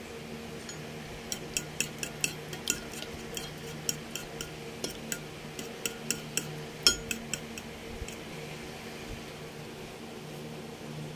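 Metal spoon clinking against a white ceramic bowl as beaten egg and flaked tuna are stirred together, a quick irregular run of clinks that stops about seven and a half seconds in. A low steady hum runs underneath.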